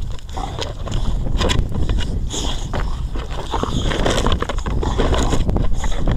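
Wind rumbling on the microphone, with frequent short scuffs and clicks from two dogs' paws scrabbling on gravel as they tussle over a plastic frisbee.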